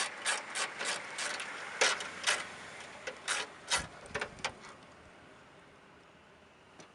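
A 1/4-inch ratchet with a deep 10 mm socket clicking in an even rhythm, about three clicks a second, backing out the bolts that hold the trunk lock on. The clicks thin out and stop about four and a half seconds in.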